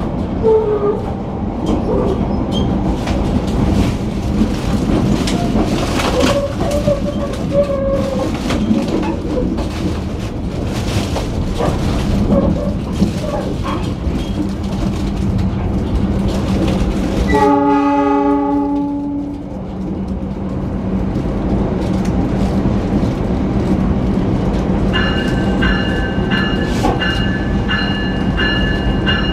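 Passenger train in motion, a steady rumble with the clickety-clack of wheels over rail joints. Well past halfway the locomotive horn sounds once, for about two seconds. Near the end a high, repeating ringing tone starts up.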